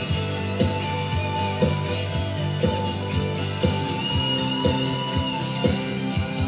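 Live band playing an instrumental passage of a pop-rock song: strummed acoustic guitar over sustained chords, with drums keeping a steady beat. A high lead note is held for about a second just past the middle.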